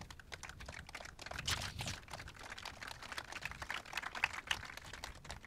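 Sheets of paper rustling and crackling as they are handled close to a microphone, a dense run of small crisp crackles that comes in two busier spells.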